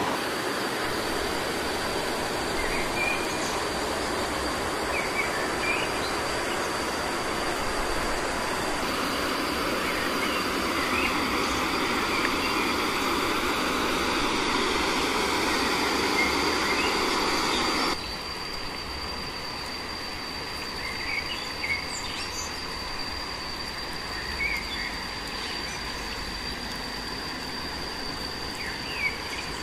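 Outdoor ambience: a steady rush of running creek water, with a thin, high, unbroken insect drone and occasional short bird chirps. The water noise drops away sharply about two-thirds of the way through, leaving the insect drone and chirps.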